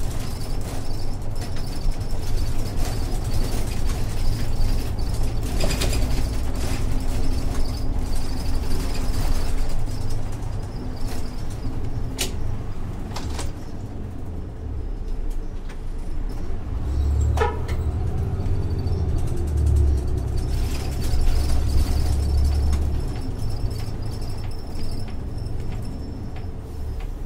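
Isuzu Erga city bus's 6HK1-TCC inline-six diesel engine and drivetrain running steadily, heard from inside the cabin, with the low rumble growing stronger for several seconds past the middle. A few sharp clicks and a short falling tone come through around the middle.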